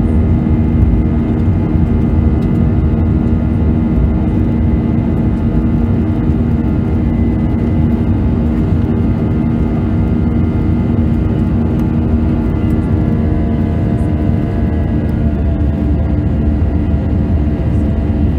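Airbus A320 jet engines at climb thrust, heard inside the cabin from a seat over the wing: a steady, loud rumble with a hum of several steady engine tones, which shift slightly in pitch a few seconds before the end.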